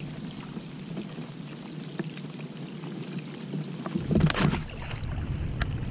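Rain falling steadily on the water around a kayak, then a short splash about four seconds in as a snook is let go over the side.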